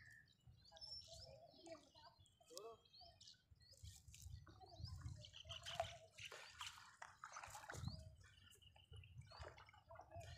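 Faint dripping and splashing of water off a wet nylon fishing net as it is hauled hand over hand out of the lake.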